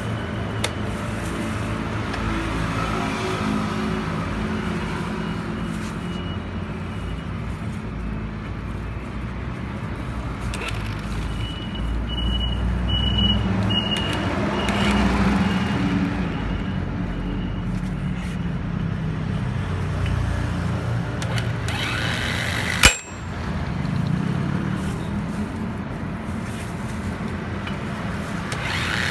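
A motor vehicle engine running steadily, with a sharp click about 23 seconds in.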